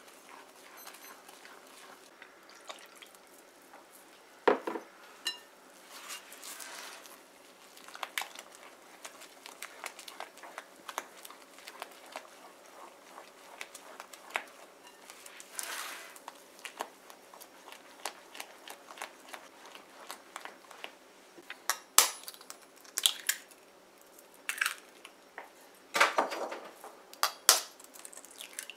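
Silicone spatula stirring cake mix and milk into batter in a glass bowl: soft scraping with scattered light taps against the glass. Near the end come sharper clicks and knocks as an egg is cracked open with a fork.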